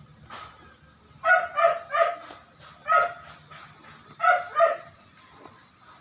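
A dog barking: three quick barks, a single bark, then two more.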